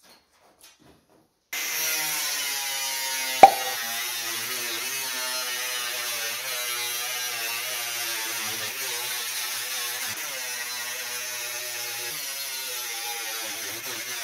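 A power tool cutting sheet metal runs steadily, starting abruptly about a second and a half in. About two seconds later there is a single sharp, loud knock.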